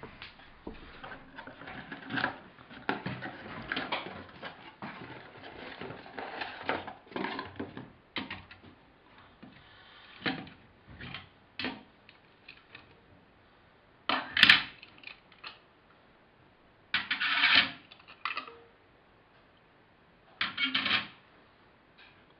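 Unboxing handling noise: a cardboard box being opened and plastic colour gel filters and kit parts handled, with continual rustling and small clatters, then several short, louder rustling bursts in the second half.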